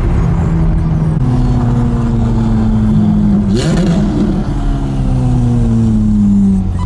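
Ferrari F430's V8 engine heard from inside the cabin while driving: the engine note steps up about a second in, then slowly falls away, with a short rising-and-falling whoosh near the middle.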